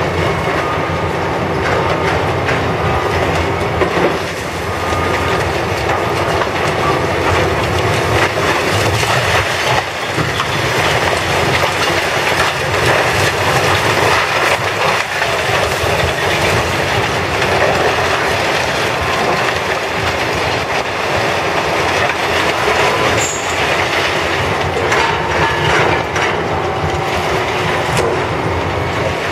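Demolition machinery tearing into a building: a loud, continuous mechanical din with metal squealing and clanking.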